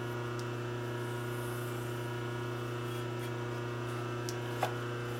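Steady electrical hum, with a single light click near the end.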